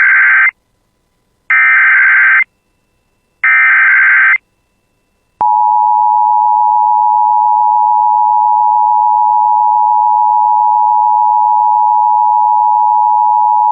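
Emergency Alert System tones announcing a tornado warning. First come three one-second bursts of SAME header data, a screechy digital warble with a second of silence between each. About five and a half seconds in, the steady two-tone attention signal starts and holds.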